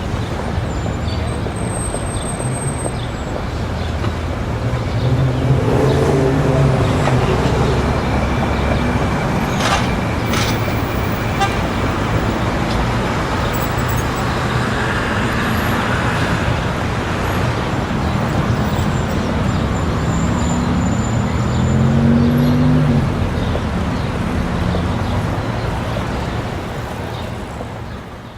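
Busy city street ambience: a steady wash of traffic with vehicles passing, two louder engine passes about a quarter of the way in and again near the end, under a faint background murmur of crowd voices. The whole bed fades out at the very end.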